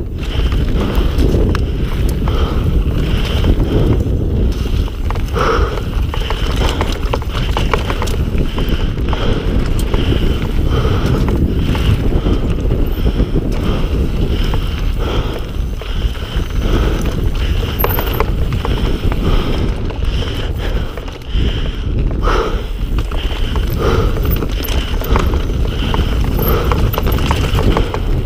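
Mountain bike being ridden fast down a rough trail: heavy wind rush on the microphone, with constant rattles and knocks from the bike and tyres over the ground.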